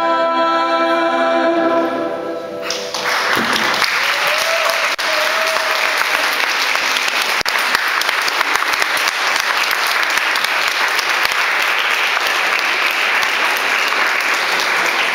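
A woman's voice holds a long final sung note that ends about three seconds in. The audience then breaks into steady applause that runs on.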